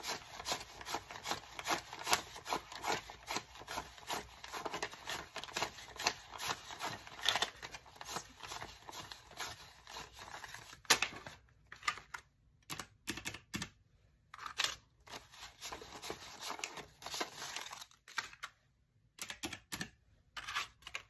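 A stack of paper dollar bills counted by hand, each bill flicked off the pile in quick rustling snaps, for about the first eleven seconds. After that come sparser clicks and rustles, among them key presses on a calculator with round, typewriter-style keys.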